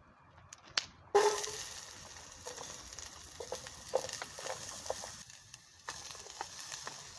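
Food hitting a hot pan and starting to sizzle suddenly about a second in, with scattered pops and crackles through the sizzle. The sizzle drops away briefly near the end, then returns.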